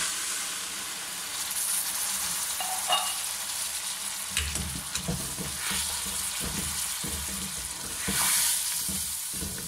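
Blended tomato puree sizzling in hot oil with fried mutton in a metal karahi, stirred with a wooden spatula that knocks and scrapes against the pan. The sizzle swells at the start and again near the end.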